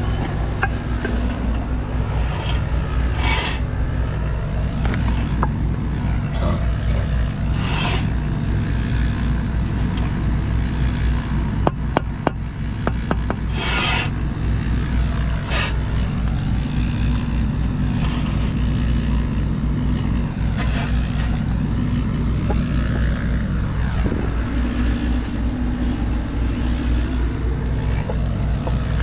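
A steady low engine hum runs throughout, with several short scraping strokes every few seconds and a brief run of clicks about halfway through.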